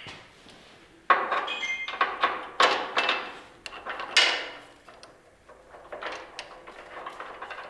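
Metal clanks and scrapes from a nut being worked onto a bolt of a trailer's turntable ring, a run of sharp knocks with a brief metallic ring, loudest about a second in and again near the middle.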